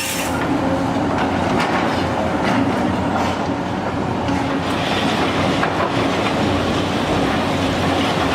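Heavy machinery working: a loud, steady mechanical noise with rapid metallic clatter, and a steady hum that grows stronger about five seconds in.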